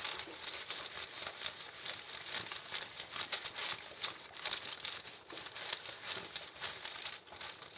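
Parchment paper rustling and crinkling as a steam iron is slid back and forth over it, pressing a crumpled cardboard box flat underneath, in short irregular strokes.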